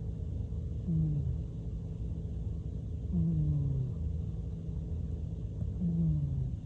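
Selkirk Rex cat snoring in its sleep: three short snores, each falling in pitch, about every two and a half seconds, over a low steady rumble.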